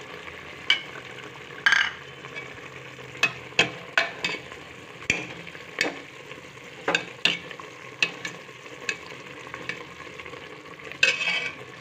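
A steel ladle stirring a thick masala gravy in an aluminium pressure-cooker pot, clanking irregularly against the pot about once a second, over a steady sizzle of the curry cooking on the gas flame.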